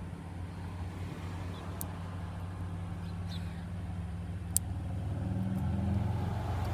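Low, steady motor-vehicle engine hum that grows louder near the end as a vehicle draws near. Two faint, sharp clicks sound in the middle, the kind a lock pick makes in a car door lock.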